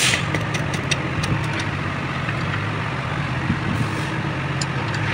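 Steady low engine-like hum, with a run of light clicks in the first second or two and a few more near the end, from wrench work loosening the 17 mm rear bolts between gearbox and engine.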